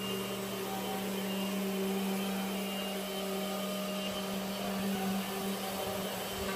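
A machine running with a steady hum at one pitch over an even hiss of air noise.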